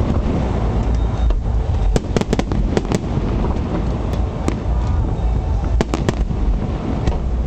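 Fireworks display going off: a continuous low rumble of booms with many sharp bangs and crackles on top, in a cluster about two seconds in and again around six seconds.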